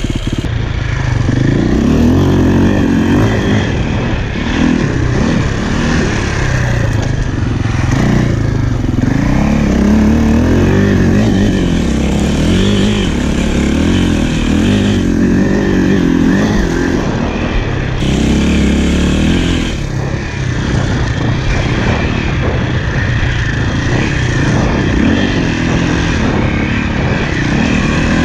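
KTM enduro dirt bike engine running under throttle as the bike is ridden through snow, its pitch rising and falling with the throttle.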